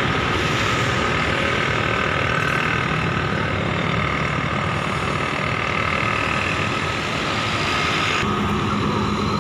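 Large diesel bus engine idling steadily, with a constant hum and whine; the sound shifts abruptly a little before the end.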